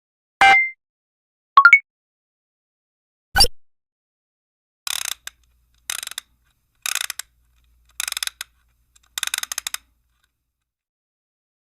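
A string of separate short sound effects: a click with a brief tone, a second sharp click, a single heavy thump, then five bursts of rapid mechanical clicking about a second apart.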